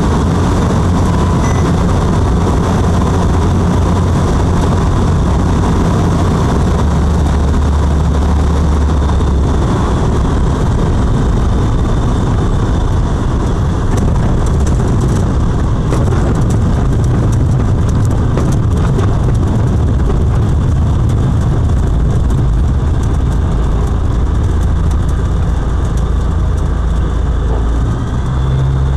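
Light aircraft's piston engine and propeller heard from inside the cockpit, running at low power through the landing on a grass strip and the slow taxi after it. Scattered clicks and knocks come around the middle of the rollout.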